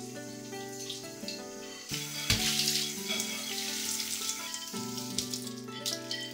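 Kitchen tap running into a sink as a glass bowl is rinsed under it, a hissing splash of water with a few light knocks of glass, over soft background music.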